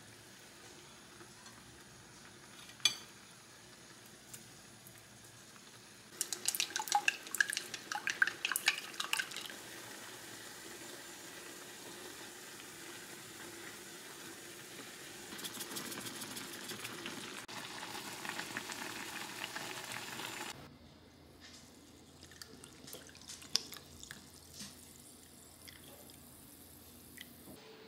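Kimchi stew simmering in a cast iron skillet on a gas stove. A burst of sharp metal clicks comes from tongs working against the pan, and the bubbling grows louder and crackly once beaten egg is poured in. The sound then drops to quiet, with a few light clicks as a sparkling drink is poured into a glass.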